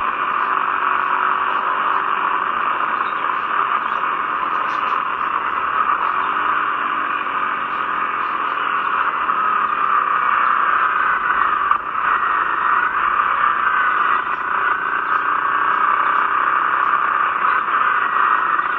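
Wind rush and motorcycle noise recorded by a rear camera on a moving Honda CRF250L Rally, played back through laptop speakers: a steady, thin hiss with a faint engine note rising and falling underneath.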